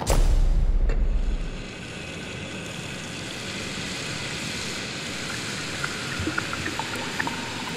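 Sound design from a projection-mapping show's soundtrack, played over loudspeakers. A deep boom opens it and rumbles for about a second and a half. It then settles into a steady rushing sound like flowing water or wind, with a few faint clicks near the end.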